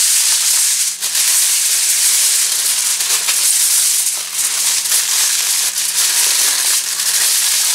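Aluminium foil crinkling and crackling steadily as hands fold and roll it into a packet around ears of corn.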